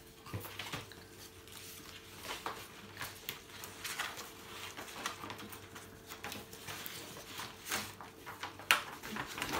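Paper instruction booklets and cardboard craft-box pieces being handled, giving scattered light rustles and taps over a faint steady hum.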